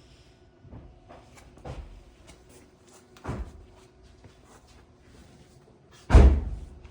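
A few knocks and clunks of things being handled, the loudest a heavy thump about six seconds in, over a faint steady hum.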